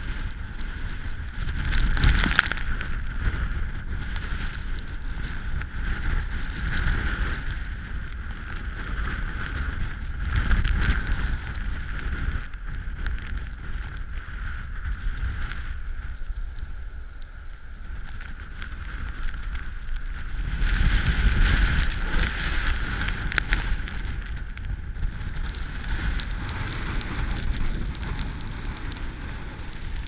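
Strong gusting storm wind buffeting the microphone over the rush of heavy storm surf breaking and washing ashore. The gusts swell several times, the strongest about two-thirds of the way through.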